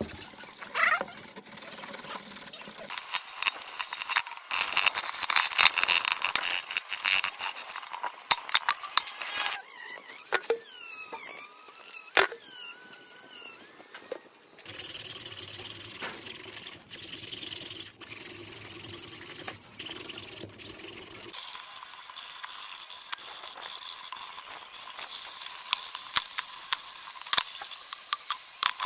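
Scraping and rubbing on rusted metal during restoration work, in several separate stretches, with brief wavering squeals about halfway through.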